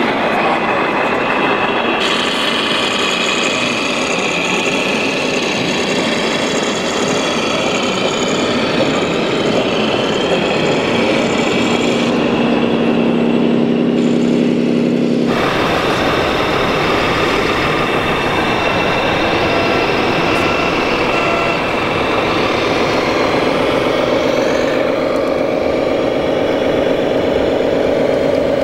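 RC Mercedes-Benz Actros model truck's electronic sound module playing a diesel engine running steadily. The sound changes abruptly several times where separate clips are cut together.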